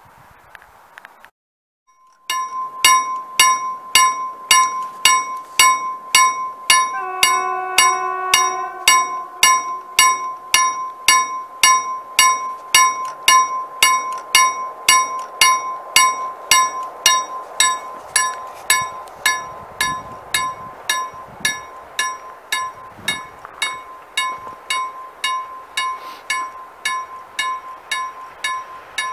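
KLD-40 level-crossing bell of a COB-63A ZWUS crossing system ringing at about two strokes a second, each stroke ringing on into the next. It starts about two seconds in, warning that a train is approaching. A horn sounds for about three seconds around seven seconds in.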